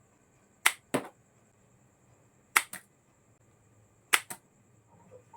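A paper toy pistol's mechanism snapping as it is fired: three pairs of sharp clicks, about a second and a half apart.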